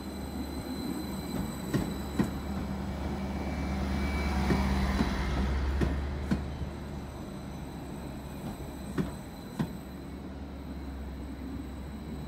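Greater Anglia electric/diesel multiple-unit passenger train running past alongside the platform, a steady low hum that swells to its loudest about four to six seconds in and then eases. A few sharp clicks come from the wheels and rails as it passes.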